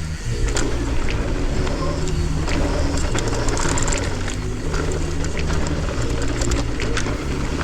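Downhill mountain bike riding over rough trail: a steady rush of tyre and wind noise, with many sharp clicks and rattles from the bike over the terrain. A low bass line of background music changes note about every second underneath.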